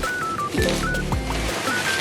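Upbeat background music with short, bright stepping melody notes over a repeating bass and beat.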